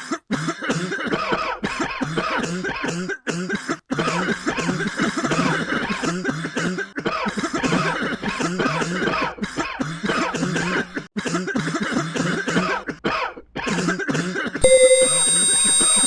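Coughing over and over in quick succession, with throat-clearing, broken by only brief pauses. About 14.5 seconds in, a loud, harsh electronic sound of many steady tones abruptly cuts in.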